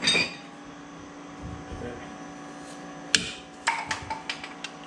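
Hand tools and fittings being handled: a short clatter at the start, a sharp click about three seconds in, then a quick run of small clicks and knocks, over a steady low hum.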